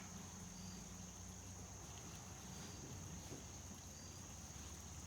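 Faint background noise: a steady high-pitched tone over a low hum, with a soft chirp about once a second.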